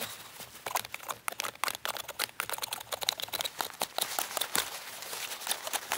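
Pocket knife whittling a wooden hammer handle: a rapid, irregular run of short shaving strokes, small clicks and scrapes of the blade on the wood.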